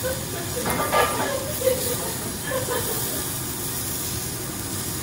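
Wagyu beef cubes sizzling on a hot steel teppanyaki griddle, a steady hiss, with a couple of short scrapes and taps of the chef's metal spatula and fork on the steel about a second in.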